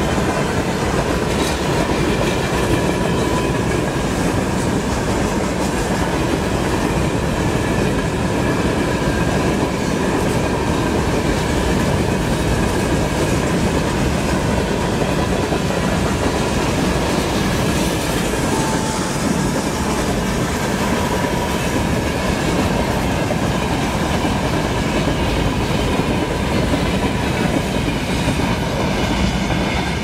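Freight train wagons rolling past on the rails, with a steady, loud running noise and wheels clacking over the rail joints, plus a faint high steady tone from the wheels.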